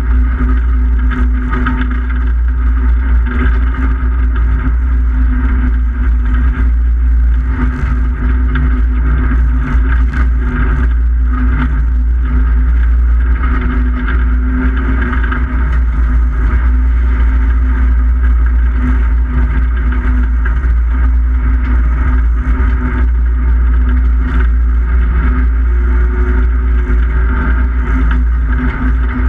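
Race car engine running hard, heard from inside the cabin at fairly steady revs with small rises and falls in pitch. Under it is a constant heavy low rumble, and short knocks from the car on the rough ice track.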